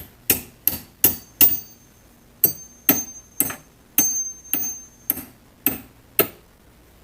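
About a dozen sharp metal-on-metal strikes, roughly two a second with a short pause about two seconds in, several leaving a brief high ring: tapping on a seized part of a 1950s Delta Homecraft drill press to knock it free.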